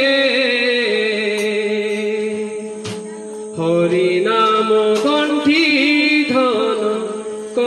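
Men's voices singing an Odia devotional kirtan in long held, ornamented notes. A sharp percussive strike comes about three seconds in and another about five seconds in.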